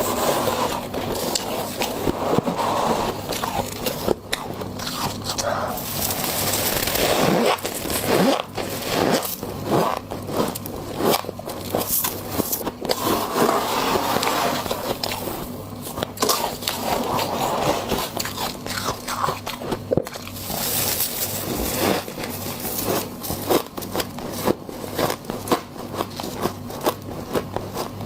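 Close-up biting and chewing of frost: a dense run of crunching, crackling and scraping that goes on without pause.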